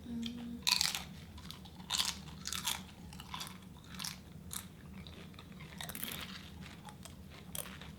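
Crunchy biting and chewing of crisp food, close to the microphone, in irregular crunches with a few louder bites.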